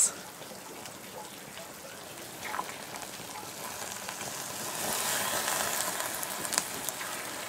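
Burning 60% rum flaming on a sugar loaf over a Feuerzangenbowle punch bowl: a steady hiss that swells for about two seconds, starting about four and a half seconds in, as burning rum is poured from a ladle and flares up.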